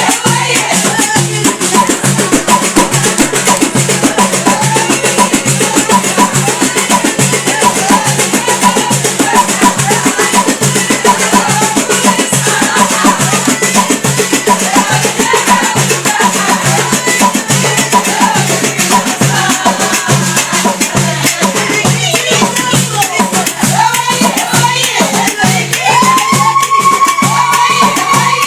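Folk song ('ouniyat') sung by a women's group over fast, even hand percussion with a rattling beat. Near the end a voice holds one long high note.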